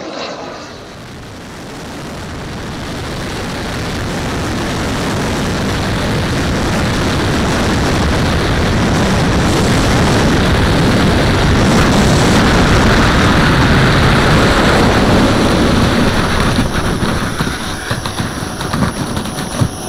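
Onboard audio from a camera under a large turbine-powered model jet (a giant-scale VC-10 with four Wren Super Sport turbines) rolling on the runway: a broad rush of turbine noise and air that builds steadily in level, then turns uneven and fluttering near the end, with a faint high turbine whine.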